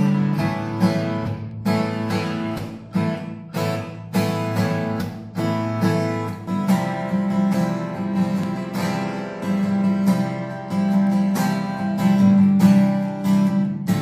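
Washburn WD10 acoustic guitar strummed, chords ringing out between strokes, with the strokes coming closer together from about halfway through.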